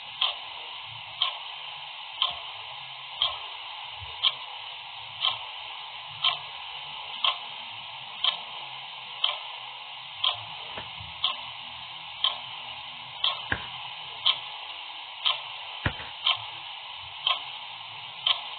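Clock ticking steadily, one tick a second, over a faint steady hiss, with a few fainter stray clicks in between.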